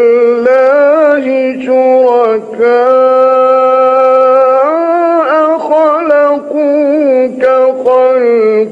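A man's voice reciting the Quran in the melodic, sung style. He holds long steady notes with ornamented turns of pitch, pausing briefly for breath.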